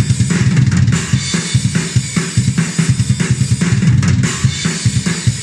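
Sampled drum kit of Ugritone's KVLT Drums II plugin (default kit) playing a fast programmed metal pattern at 145 BPM: rapid bass drum hits under snare and a steady wash of cymbals. The Humanize control is being turned up, so the hit velocities become uneven like a real drummer's instead of machine-exact.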